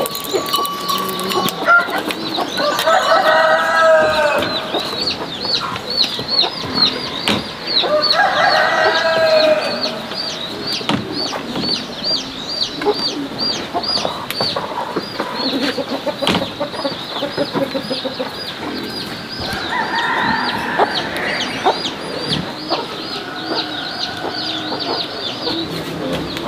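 A rooster crowing three times, each crow about two seconds long, over a continuous high chirping. Scattered sharp knocks sound between the crows.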